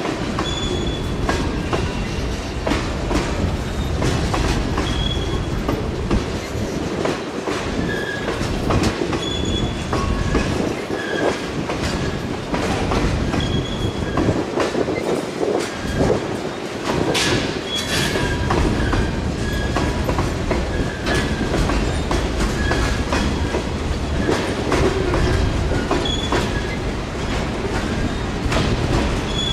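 Freight cars rolling steadily past: a continuous low rumble of boxcars and lumber-loaded centerbeam flatcars, with rapid clicking from the wheels and short, high wheel squeals again and again. A brief sharp hiss stands out about halfway through.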